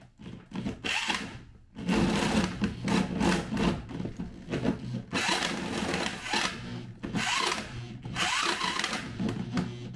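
Corded electric drill turning a hole saw on a long extension bar, cutting down through the wooden truck floor. The cut comes in repeated grinding surges every second or two as the saw bites into the wood.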